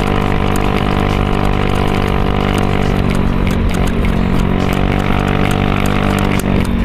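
Honda motor scooter running at a steady cruise with road and wind noise, mixed with background music that carries sustained low tones.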